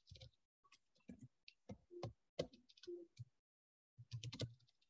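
Faint keystrokes on a computer keyboard as a short phrase is typed: quick, uneven clicks with a brief pause about three and a half seconds in.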